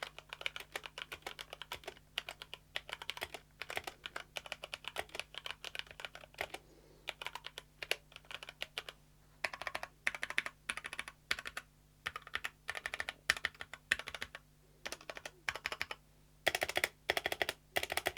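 Typing on a 65% mechanical keyboard with HyperX Aqua tactile switches and PBT keycaps in a full aluminium body: quick runs of keystroke clacks in bursts with short pauses between. The sound is moderate, neither too loud nor too quiet.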